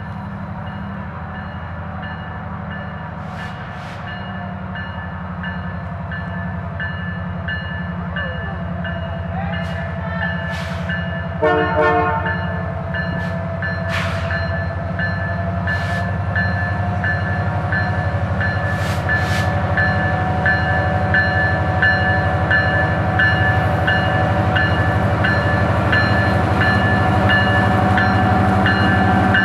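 Canadian Pacific GP20C-ECO diesel locomotive approaching slowly, its engine drone growing steadily louder. About eleven seconds in it sounds a short horn blast, and after that its bell rings at an even beat.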